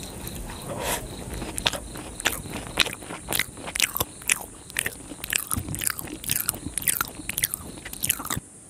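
Close-miked eating sounds of a laddoo being chewed, then crisp jalebi being bitten and chewed, with many sharp crunchy crackles from about a second in. The sound cuts off abruptly near the end.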